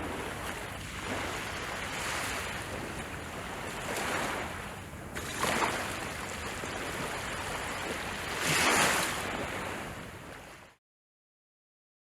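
Ocean surf: a steady wash of waves with several swells, the biggest near the end, then fading out and stopping abruptly into silence.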